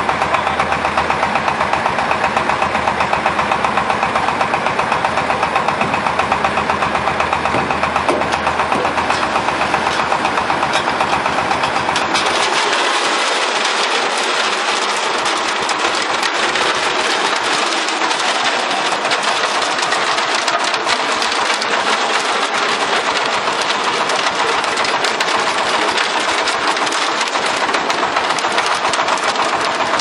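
Concrete mixer running with its drum turning: a steady machine sound with a fast, even pulse. About twelve seconds in, the deep low hum drops away and the sound turns thinner and noisier.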